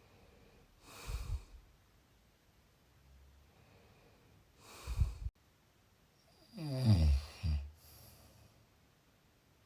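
A sleeping person snoring. There are two short, breathy snores, then a louder, longer snore that falls in pitch and breaks off into a brief second part.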